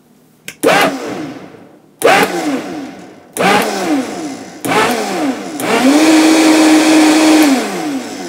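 Vitamix blender pulsed on high: about five short bursts, each starting suddenly and winding down in pitch, the last held steady for about two seconds before spinning down. The pulsing throws the thick smoothie up the jar to the lid.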